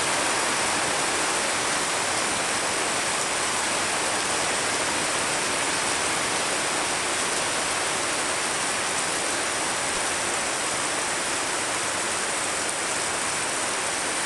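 Rain falling steadily on a garden and its broad banana leaves: a dense, even hiss that holds unchanged throughout.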